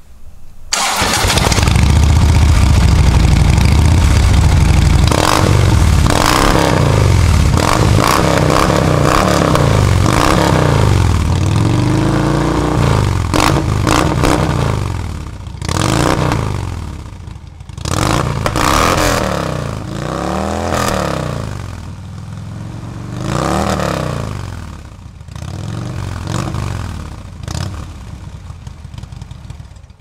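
Harley-Davidson Street Glide's V-twin engine through Rinehart 4.5-inch slip-on mufflers with DBX 4.5 baffles: it starts up about a second in, runs loud at a fast idle, then is revved up and down over and over, each rev rising and falling in pitch.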